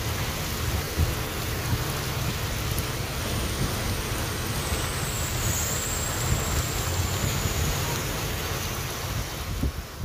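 Heavy monsoon rain pouring down onto a wet street, a dense steady hiss with a low rumble underneath.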